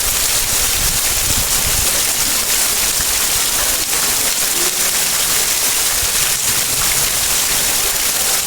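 Heavy storm rain pouring down steadily: a loud, dense, even hiss.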